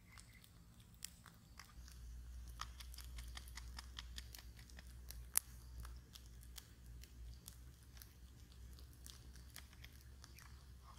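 Tip of a serrated knife chipping and scraping at an eggshell to open a hole in it: a run of small crisp clicks and crunches, with one sharper crack about five seconds in.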